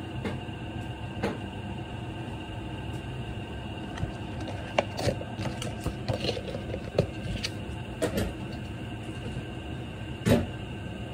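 A lidded pan of soup heating on a gas burner near the boil: a steady low rushing with small pops and clicks scattered through it, and one louder knock about ten seconds in.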